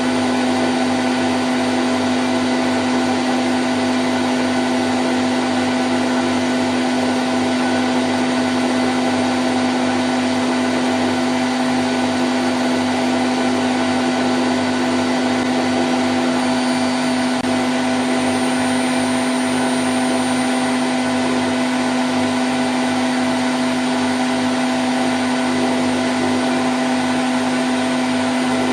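Candy Grand O' F106 washing machine spinning at 1000 rpm: a steady, unchanging whirr with one strong low hum running through it.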